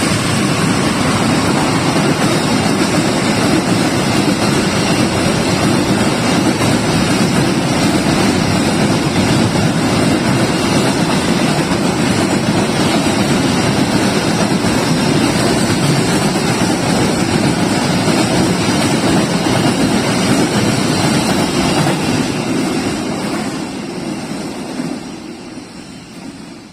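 Long freight train passing close by: a loud, steady noise of wagons' wheels running on the rails, fading away over the last few seconds.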